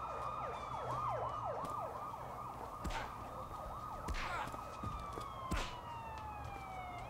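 Police siren sounding: a steady tone that breaks into a fast yelp about half a second in, holds steady again, then slides slowly downward in pitch near the end. A few dull thuds come in between.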